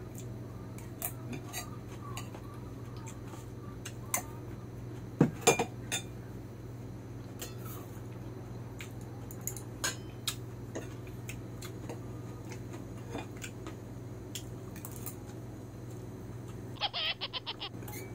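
Metal spoon and fork clinking and scraping against a plate and stainless steel bowls while eating, in scattered single clinks with a quick run of about seven taps near the end. A steady low hum runs underneath.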